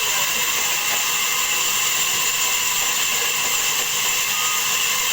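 Sawmill log saw running steadily, a continuous high-pitched whine over a hiss.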